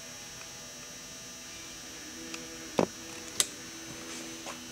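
Steady electrical hum, with two short sharp knocks about three seconds in and a few fainter ticks.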